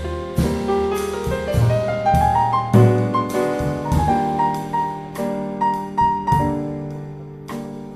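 Jazz piano solo with low bass notes underneath, its single-note line climbing upward a couple of seconds in, then thinning out and growing quieter near the end.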